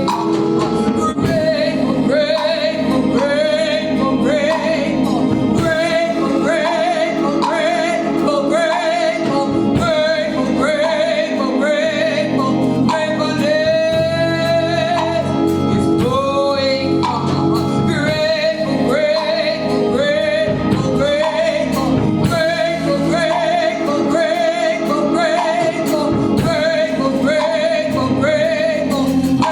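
Gospel music: a male voice singing a bending, ornamented melody over steady instrumental accompaniment.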